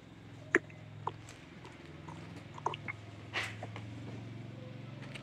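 Clothes and boxes being handled on the floor: a few sharp clicks and light knocks and a short rustle, over a faint steady low hum.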